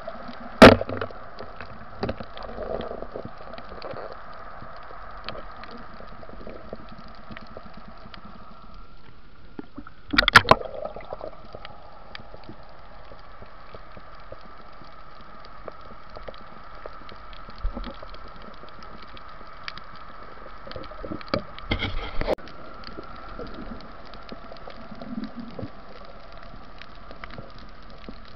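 Underwater sound through a diving camera's housing: a steady hum with scattered faint clicks, broken by loud sharp knocks about a second in, a quick double around ten seconds in, and a short cluster of clicks around 22 seconds.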